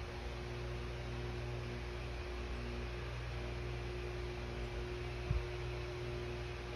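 A steady low hum with one constant tone over an even hiss, and a short soft low bump about five seconds in.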